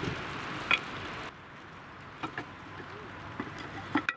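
Rain pattering steadily on a polycotton tent, cutting off abruptly about a second in; after that, scattered light knocks and clicks from camp gear being handled.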